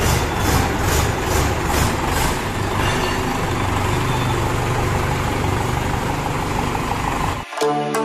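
Mahindra 415 DI XP Plus tractor's four-cylinder diesel engine idling steadily with a light clatter. It stops abruptly near the end and music takes over.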